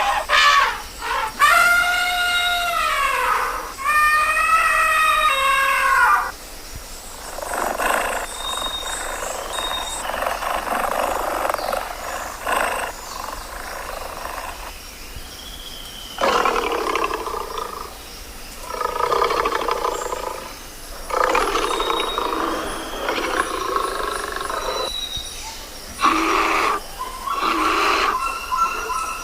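A run of wild animal calls: two long, arching, high-pitched elephant trumpets, then repeated roars from big cats.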